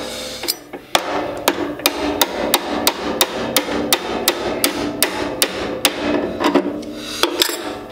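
Hand hammer striking steel locking pliers clamped onto the drive shaft of a disc mower's cutter bar, metal on metal, to drive the stuck shaft out. The blows come steadily at about three a second after a short pause at the start.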